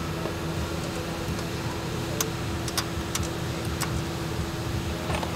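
A steady hum with a handful of light, sharp clicks and taps, mostly between about two and four seconds in and once more near the end, from hands and tools handling parts in a car's engine bay.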